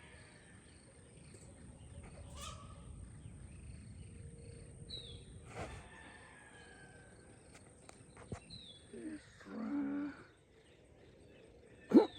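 Outdoor ambience with a few short, high, falling bird chirps over a steady high-pitched insect drone, and a brief lower sound near the end.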